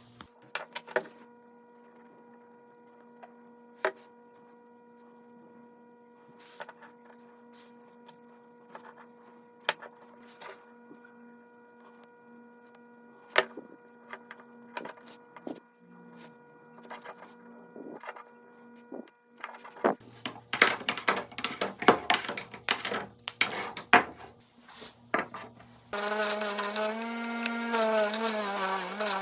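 Scattered light knocks and clicks of wooden pieces being handled over a faint steady hum. These grow busier about two-thirds of the way through, and near the end a loud sound with a wavering pitch runs for about three seconds.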